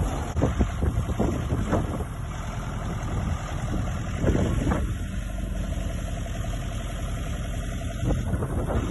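Old tractor engine running steadily while the tractor pushes its rear-mounted tipping box into a pile of soil and plant waste. A few irregular knocks and scrapes come from the box working the pile and gravel.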